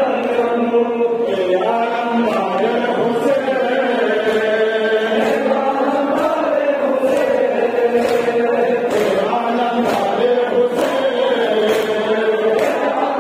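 A crowd of men chanting a mourning noha (lament) in unison, the melody held without a break. Rhythmic chest-beating (matam) strikes along with it, about once every two-thirds of a second.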